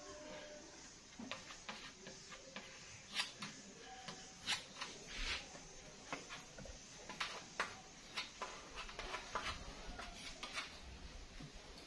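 A small scraper spreading and pressing a paste of wood glue and sanding dust into cracks and knot holes on a wooden board: irregular short scrapes and light taps of the blade on the wood.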